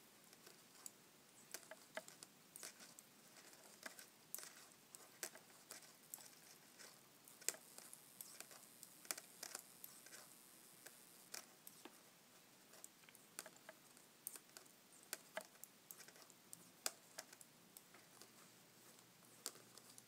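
Faint, irregular clicking and ticking of Addi Lace Click metal knitting needles tapping together as stitches are knit off one needle onto the other.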